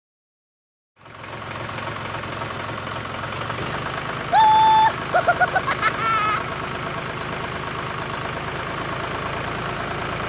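A vehicle engine idles steadily, starting about a second in after silence. Just past the middle a held horn-like tone sounds, followed by a quick run of short beeps and a brief rising squeak.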